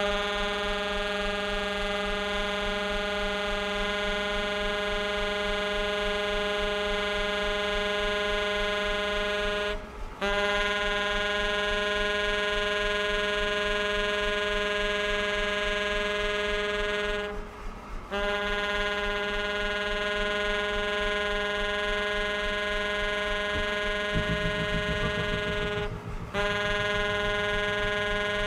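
Tenor saxophone holding the same low note in three long tones, each several seconds long, with two short breaks between them. Near the end an electric bass comes in with a fast pulsing low figure under the held note.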